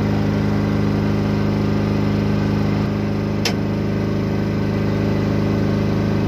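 A 6.5 kW diesel generator set running at a steady pitch. One sharp click sounds about halfway through.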